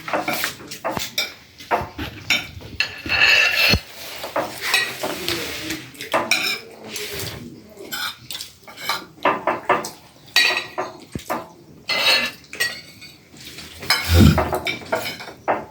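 Spoons scraping and clinking against plates of rice during a meal, in many short, irregular strokes.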